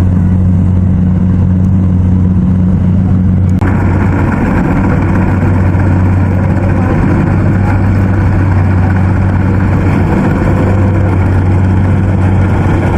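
Rice combine harvester's engine running steadily with a constant low drone. About three and a half seconds in, a louder, higher rushing noise joins it and holds.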